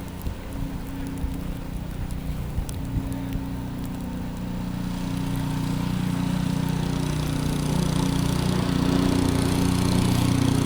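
Small gasoline engine of a snow blower running steadily, growing louder about halfway through as it comes closer.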